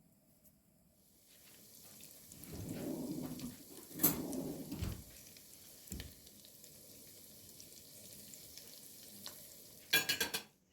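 Food sizzling in a frying pan, with a few knocks of a utensil against the pan and a quick run of clatter near the end.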